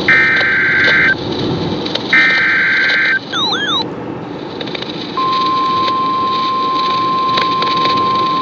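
NOAA Weather Radio emergency alert: the last two of three SAME header data bursts, each a harsh buzzy screech about a second long with a second's gap between, encoding a new severe thunderstorm warning. Then a brief warbling chirp, and about two seconds later the steady 1050 Hz weather-radio alarm tone starts and holds, over a steady background rumble.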